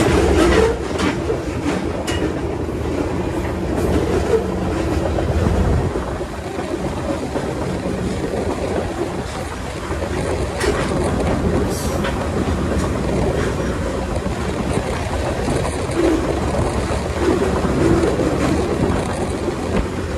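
Freight train rolling steadily, heard from aboard one of its cars: continuous rumble of steel wheels on rail with clickety-clack from rail joints and a few sharp clicks.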